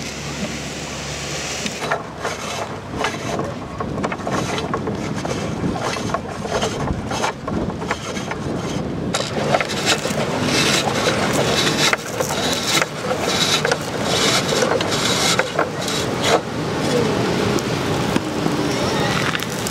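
Toy crane's steel-and-plastic clamshell scoop knocking and scraping in sand as it is worked, many small clunks and rattles over the rumble of wind on the microphone.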